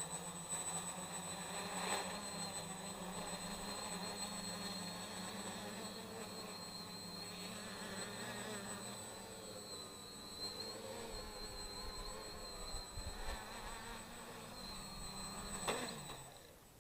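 Small homemade 3D-printed quadcopter's electric motors and propellers buzzing, the pitch wavering as the throttle changes. Near the end the motors spin down with a falling pitch and stop.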